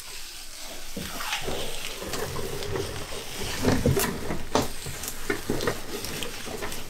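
Plastic sheeting and foil tape crinkling and crackling as they are pulled away from the edge of an epoxy-coated countertop, with scattered sharp clicks.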